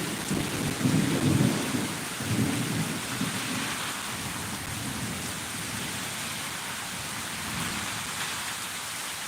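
Thunder rumbling in heavy pulses for the first few seconds and then dying away, over steady rain.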